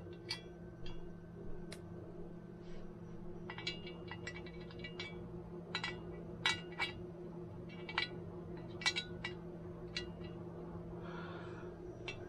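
Small metal gearbox parts of a KitchenAid stand mixer (gears, shaft, bearing pieces) clinking and tapping against each other as they are handled. About two dozen light, ringing clicks come at uneven intervals over a steady low hum.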